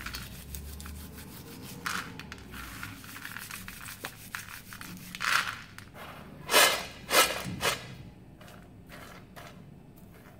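Dry-roasted peanuts rubbed between the palms on a steel plate, a dense dry crackling rustle of their papery skins flaking off. A few louder swishes come between about five and eight seconds in, as the plate is handled to shake the loose skins apart.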